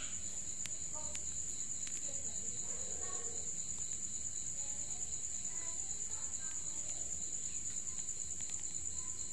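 Crickets trilling steadily: one continuous high-pitched, fast-pulsing note, with a fainter lower note under it.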